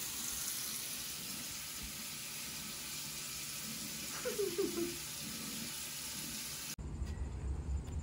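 Bathroom tap running into the sink, a steady hiss, with a short sliding tone over it about four seconds in. Near the end the hiss cuts off abruptly and gives way to a low rumble.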